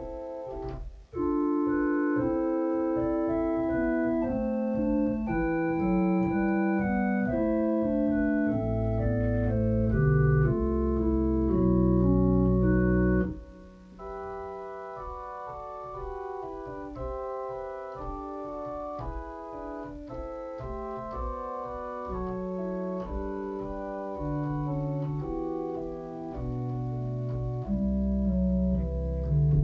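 Organ music: sustained chords over a deep bass line. It breaks off briefly about a second in, then pauses about halfway through and goes on more quietly.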